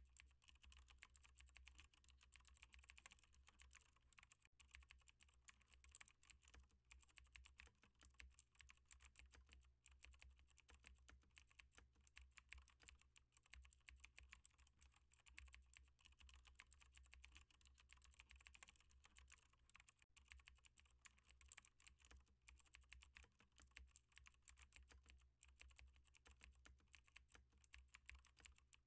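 Faint, continuous typing on a computer keyboard: rapid key clicks with a few brief pauses.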